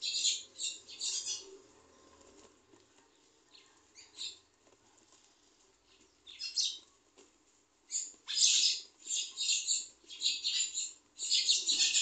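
Pencil scratching on paper in short strokes: a few quick strokes at the start, scattered single strokes in the middle, then a fast run of strokes from about eight seconds in.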